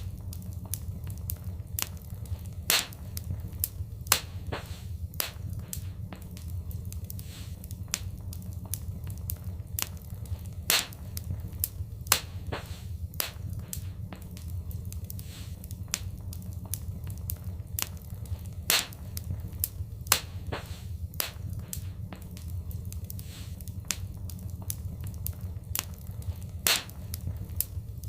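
Wood fire in a fireplace crackling, with frequent sharp pops and snaps over a steady low rumble of the flames; a few pops stand out louder, spread through the stretch.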